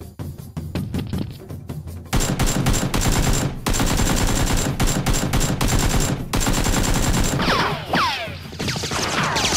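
Rapid automatic gunfire sound effects in long bursts, starting about two seconds in after a few quieter clicks. Near the end, several falling whistles sound over the shots.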